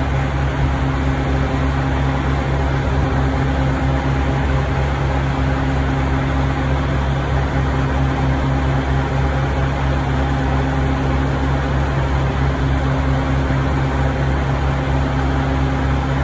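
Diesel being pumped at high flow into a semi truck's tank: a steady low mechanical hum with a few held tones.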